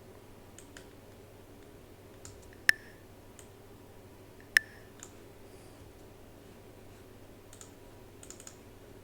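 Clicks of a computer mouse and keyboard: scattered faint clicks, with two sharp, louder clicks about two seconds apart near the middle, over a low steady hum.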